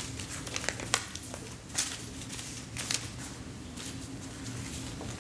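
Hall room tone: a steady low hum with scattered faint rustles and clicks, the clearest about one, two and three seconds in.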